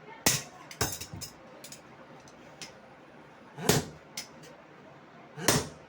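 Hammer striking metal in irregular blows: four sharp strikes, two close together near the start and two more spaced out later, with lighter taps between, as a blacksmith works a hatchet.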